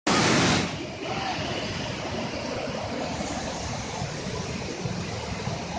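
Rushing water of a waterfall: a steady noise, loudest in the first half second and then settling to an even rush.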